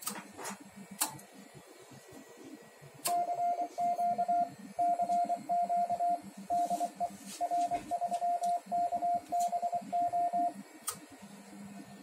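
Morse code CW sidetone from a ham radio transceiver: a single steady tone keyed on and off in dots and dashes for about seven seconds, starting about three seconds in, as CW is sent through the amplifier. A few sharp clicks come in the first second and again near the end.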